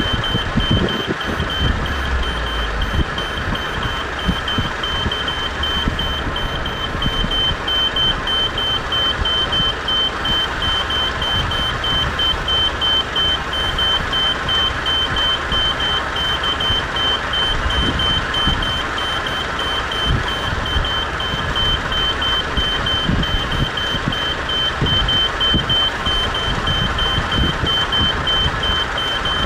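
Level-crossing warning signal's electronic bell sounding a rapidly repeating high beep without a break while the red lights flash, over steady rumbling background noise.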